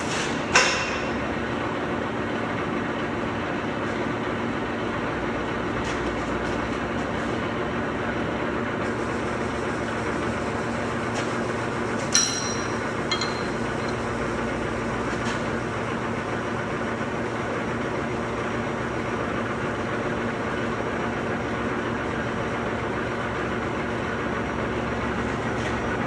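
Steady machinery hum with two sharp metallic clanks, one about half a second in and a ringing one about twelve seconds in.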